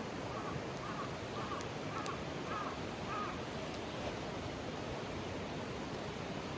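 Mountain stream rushing steadily, with a bird calling six times in quick succession, about two calls a second, during the first half.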